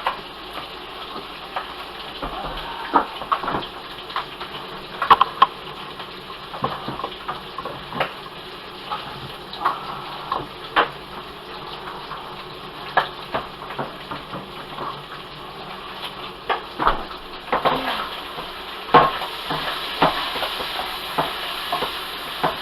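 Cabbage and bacon frying in a pot, sizzling steadily, with a spoon clicking and scraping against the pot as it is stirred. The sizzle grows louder and hissier near the end.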